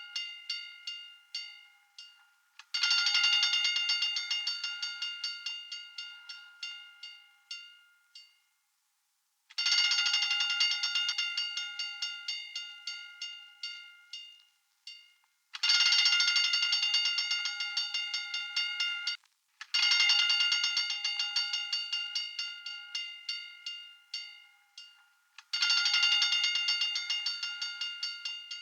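Fire alarm bell ringing with rapid repeated strikes, in bursts of about five seconds that start loud and fade away, separated by short gaps.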